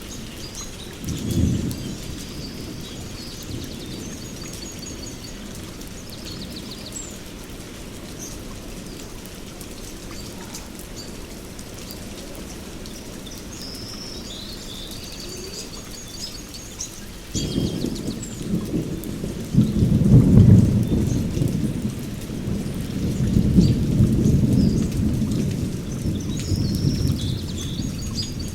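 Steady heavy rain with thunder: a brief low rumble about a second in, then a long roll of thunder starting about two-thirds of the way through that swells twice and is still rumbling at the end.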